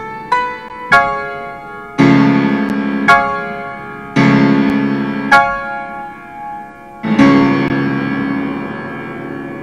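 Yamaha grand piano played solo, slowly: single notes and full chords, each struck and left to ring and fade. A chord struck a little after seven seconds in is held and dies away.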